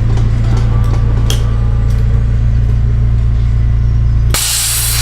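Air-ride suspension on an Acura RSX dumping air from its bags. A sudden loud hiss starts about four seconds in as the car is lowered. Before it there is a steady low hum.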